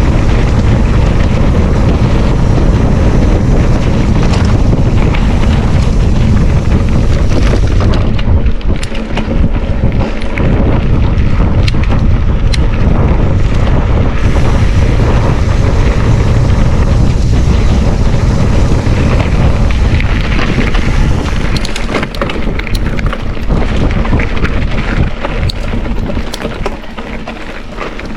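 Loud wind buffeting and rushing on the microphone, heavy in the low end, easing a little over the last few seconds.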